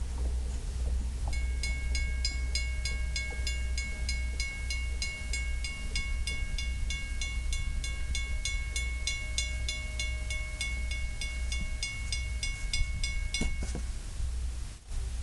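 Railroad grade-crossing bell ringing in rapid, even strokes as the crossing gate arm lifts after the train has cleared; it cuts off near the end.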